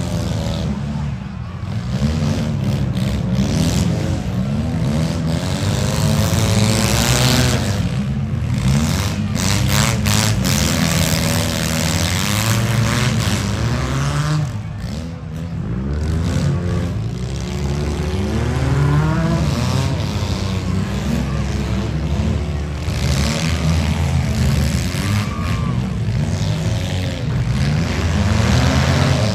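Several demolition-derby compact car engines revving hard at once, their pitch wavering up and down continuously as the cars shove against each other.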